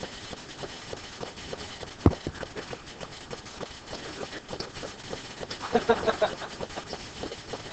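A pen tapping and scraping on a touch screen or interactive board while handwriting, a run of light irregular clicks, with one louder knock about two seconds in and a short burst of sound near six seconds in.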